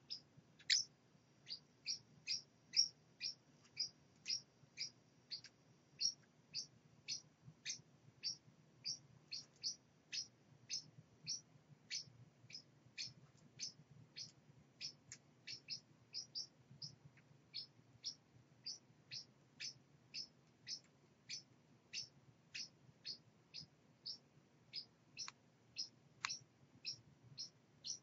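Baby parrot chick peeping: a short, high chirp repeated steadily a little under twice a second.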